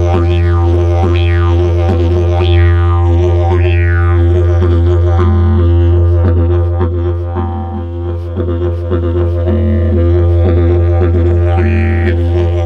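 Didgeridoo playing a steady low drone. In the first few seconds its overtones sweep downward again and again, about once a second, and then the playing turns to a quicker rhythmic pulsing over the same drone.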